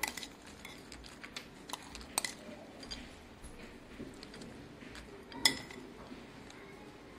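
Steel spoon clinking and scraping against a glass bowl while scooping nachos bhel, with a few scattered light clinks and one louder clink about five and a half seconds in.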